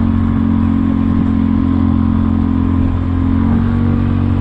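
Kymco People 250 scooter's single-cylinder four-stroke engine running steadily under way, heard through a slip-on muffler whose joint to the down pipe is sealed with JB Weld HiHeat to stop exhaust leaks. There is a brief dip in level about three seconds in.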